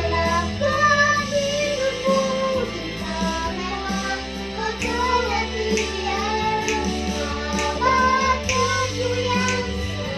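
A child singing a sustained melody over a backing track with bass notes and a steady beat.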